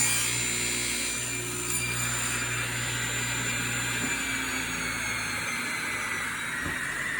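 Table saw just after a miter cut, its motor and blade running and then coasting down: the high whine falls slowly in pitch, and the low hum fades out about four to five seconds in.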